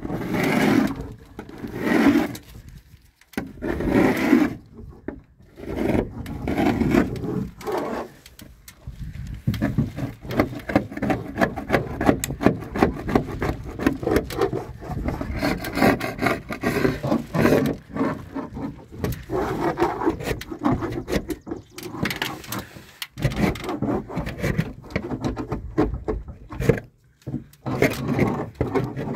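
Metal putty-knife paint scraper pushed along a weathered wooden garage door, scraping off flaking white paint. Slow separate strokes about every two seconds at first, then quick, nearly continuous short strokes from about nine seconds in.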